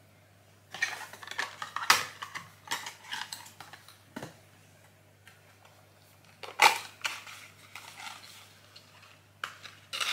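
Cardboard advent-calendar packaging being opened and a boxed product taken out: rustling and scraping of card with several sharp clacks, the loudest about two seconds in and another about two-thirds of the way through.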